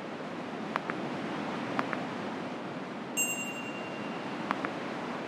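Steady wash of ocean surf, with a few short mouse clicks and a bright ringing chime about three seconds in.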